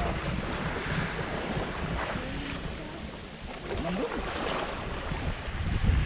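Wind noise on the microphone over sea waves washing against a rocky shore: a steady rushing noise with an uneven low rumble.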